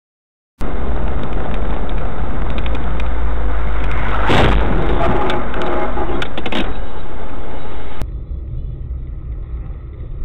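Dashcam recording of a car driving on a winter road: loud, steady road and engine rumble heard inside the cabin, with scattered clicks and a louder noisy burst about four seconds in. Near eight seconds it switches abruptly to a quieter cabin rumble from another car driving.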